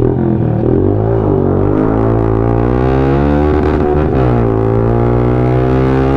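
Suzuki Gixxer single-cylinder motorcycle engine running through an SC Project aftermarket exhaust, loud. The engine speed dips and picks up again about a second in and once more around four seconds.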